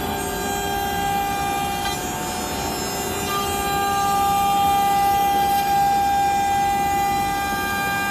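CNC router spindle running with a steady whine of several held tones over machining noise; the tones shift a little about two and three and a half seconds in as the load changes.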